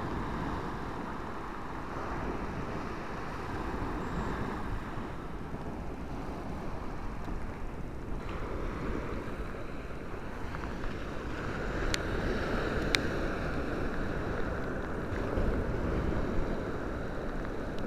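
Surf breaking and washing up a sand beach, with wind buffeting the microphone. Two brief sharp clicks a second apart about two-thirds of the way through.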